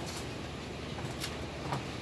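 Passenger train running on the rails, heard from on board: a steady rumble and hiss with three short, sharp clicks.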